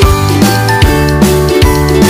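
Instrumental background music with a steady drum beat, about two and a half beats a second.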